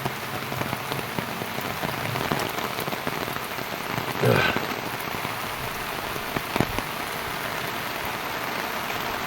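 Steady rain falling, an even hiss with no break. About four seconds in there is a short louder sound, and a single sharp knock comes a couple of seconds later.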